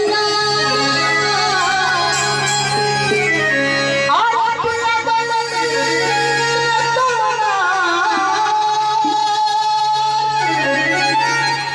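Live Indian song: a man singing into a microphone over an electronic keyboard accompaniment, amplified through stage speakers.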